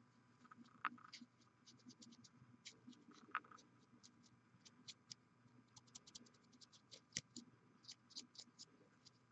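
Faint, scattered small clicks and scratches from handling a plastic miniature while brushing paint onto it, with a few sharper ticks about a second in, around three and a half seconds and around seven seconds.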